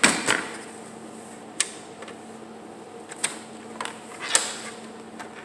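Scattered clicks and knocks of hands handling the metal chassis and parts of a Dell OptiPlex 755 desktop computer during disassembly. The loudest knocks come right at the start and about four seconds in, over a steady low hum.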